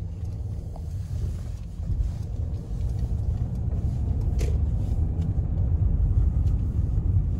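Car cabin noise while driving on wet pavement: a steady low rumble of engine and tyres that grows a little louder after about two seconds, with a short click about four and a half seconds in.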